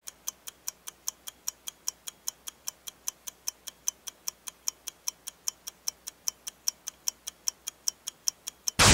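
Clock-style ticking, even and fast at about five ticks a second, broken off at the very end by a sudden loud boom.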